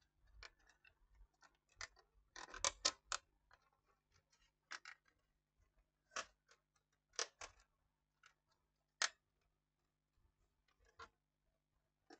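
Plastic front cover of a DVD player being handled and fitted onto its metal chassis: scattered light clicks and knocks, with a quick run of several clicks about two and a half seconds in.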